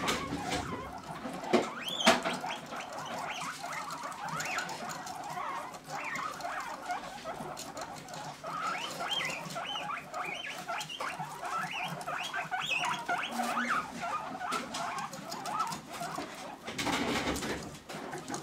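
Several guinea pigs squeaking over and over in short, quick calls as they crowd together to eat. There are two sharp clicks about one and a half and two seconds in.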